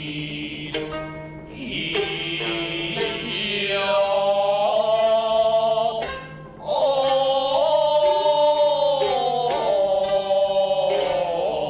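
Traditional Japanese kabuki stage music: a chanter's voice draws out long, bending notes, with a few sharp plucked notes in the first half. The voice breaks off briefly about halfway through, then comes back louder.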